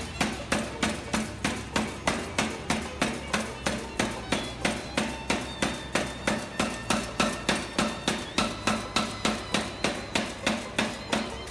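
Chambersburg 200-lb air-driven utility power hammer running in repetitive-blow mode, its ram striking about three times a second in an even rhythm. The blows stop right at the end.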